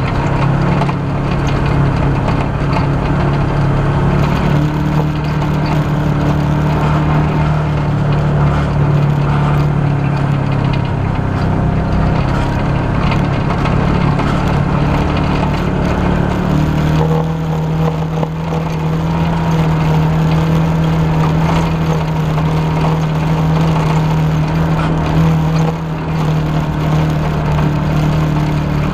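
Side-by-side off-road vehicle's engine running steadily under way, its drone stepping up slightly to a new steady note a little past halfway, with the rattle and knocks of the vehicle over a rough dirt track.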